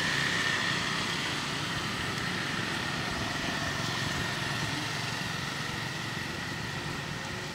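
A small engine running steadily, with a thin steady whine over it, getting slowly fainter.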